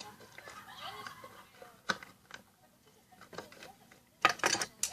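Scissors cutting a thin plastic sour cream tub: one sharp snip about two seconds in and a quick run of snips near the end.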